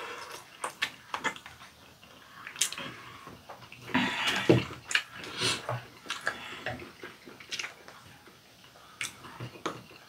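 Close-up eating sounds: chopsticks clicking against ceramic bowls and wet chewing and slurping of fish roe soup and rice. The loudest stretch, a wet slurping and chewing, comes about four seconds in.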